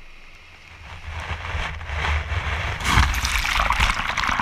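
Wave wash surging up the sand and around the microphone: a rushing, fizzing hiss that builds from about a second in and is loudest around three seconds, over a low rumble of water buffeting the mic.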